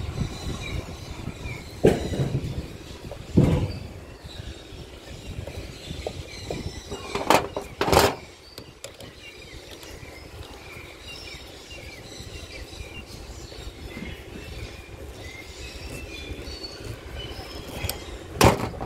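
Screwdriver and hands working wires into the terminals of a plastic MCB distribution board: a few short sharp knocks and clicks over a steady low rumble.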